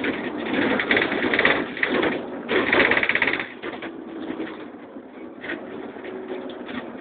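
Rapid mechanical rattling inside a Karosa Citybus 18M articulated bus, loud for the first three and a half seconds, then dropping to a quieter steady hum of the running bus.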